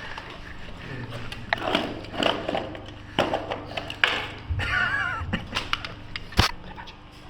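Irregular knocks and clatter of movement during close-quarters airsoft play, with one sharp crack about six and a half seconds in.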